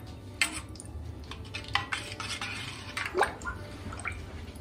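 Metal spoon stirring coconut milk with kokum (solkadhi) in a stainless steel pot, clinking and scraping against the pot's sides at an uneven pace, with a few sharper clinks about half a second in and just after three seconds in.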